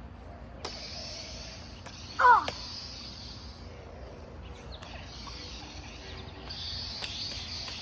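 Lightsaber blades clacking against each other several times in a mock duel, over a steady hiss. About two seconds in comes one short, loud cry that falls in pitch.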